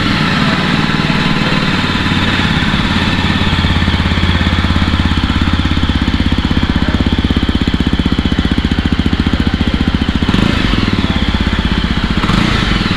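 Yezdi Roadster motorcycle's 334 cc single-cylinder, fuel-injected engine idling steadily just after starting, heard through its stock exhaust, with two brief rises in the note near the end.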